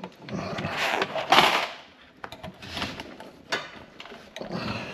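Insulated electrical wires being pulled by hand into a metal junction box: several rubbing, scraping swishes as the cable drags through, with a single sharp click about three and a half seconds in.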